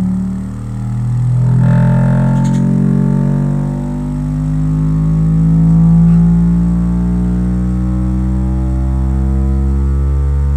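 Bass-heavy music played through a sound bar and subwoofer: a deep, droning stack of sustained tones whose pitches glide slowly, with two brief dips in loudness in the first half.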